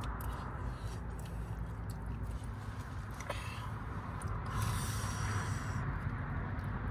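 A person eating, with small mouth and utensil noises over a steady low rumble; the noise swells for about a second near the middle.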